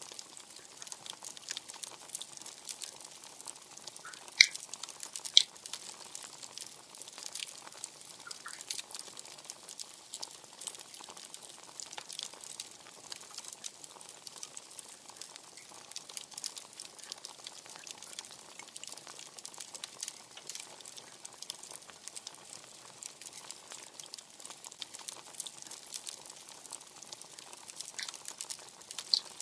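Wood fire crackling steadily with small, irregular clicks, and two sharp pops about a second apart, around four and five seconds in.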